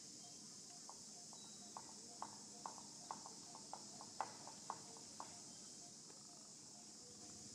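A faint, irregular run of about fifteen short, sharp clicks over about four seconds, with a steady high hiss underneath.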